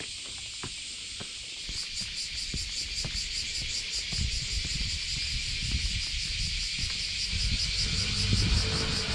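Cicadas buzzing steadily, with a louder pulsing high drone joining about two seconds in. Footsteps on stone steps sound about every half second near the start, and a low rumble grows in the second half.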